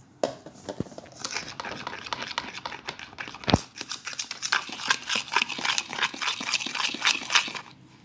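A fork stirring sticky glue slime in a bowl while activator is worked in, making a quick, irregular run of small clicks and scrapes. There is one louder knock about three and a half seconds in, and the stirring stops near the end.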